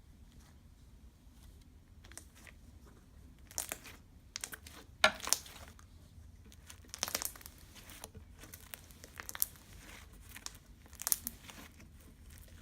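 Slime being poked and squeezed: irregular sticky crackles and small pops in clusters, the loudest about five seconds in, after a few quiet seconds.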